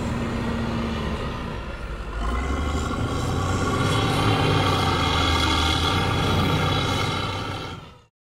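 Wheel loader's diesel engine running as the machine drives through sand, getting louder about two seconds in. The sound fades out and cuts off near the end.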